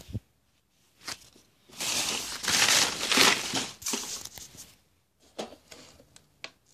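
Rustling and scraping handling noise, loudest from about two to four and a half seconds in, with a few light clicks and knocks before and after.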